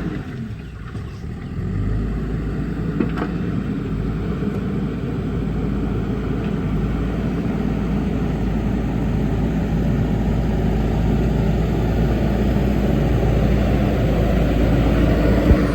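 Backhoe loader's diesel engine running steadily while working, dipping briefly about a second in and growing slightly louder toward the end.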